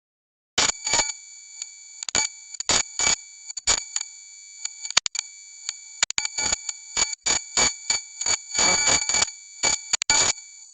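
Electronic noise sound effect: steady high-pitched electronic tones overlaid with irregular, glitchy crackling bursts, like signal interference. It starts abruptly about half a second in and cuts off suddenly at the end.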